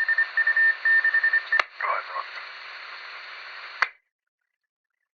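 Police two-way radio transmission: the squelch opens on static hiss with a stuttering beep tone for about a second and a half, a click, then a brief garbled fragment of voice. Static runs on and the transmission ends with a sharp squelch-tail click just before four seconds in, followed by dead air.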